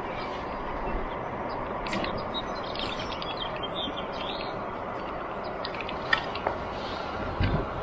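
Steady rushing outdoor noise with a few faint, short high chirps, like small birds, and a couple of light knocks followed by a dull thump near the end.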